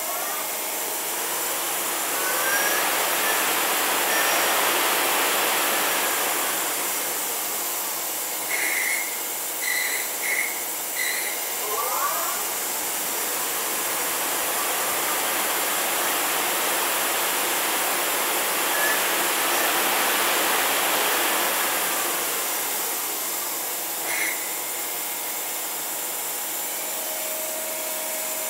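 Takisawa TMM 250 twin-spindle CNC lathe running with no cut: the spindle drive whines up in pitch and back down twice, over a rushing hiss from the spinning chuck. A few short sharp bursts come in quick succession about nine seconds in, and once more near the end.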